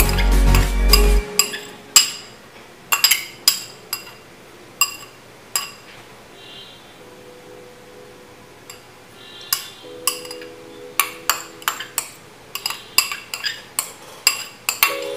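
Background music that stops about a second in, then a spoon clinking and tapping against ceramic bowls as diced vegetables are scraped out, in short clusters of sharp clinks, with faint music underneath in places.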